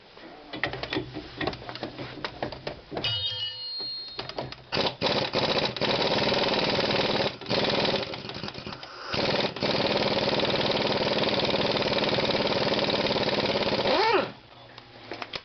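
Impact wrench hammering on the bolts that hold the rear strut to the steering knuckle, loosening them. It runs in one long stretch with two brief breaks, then winds down near the end. Light metallic clicks come before it starts.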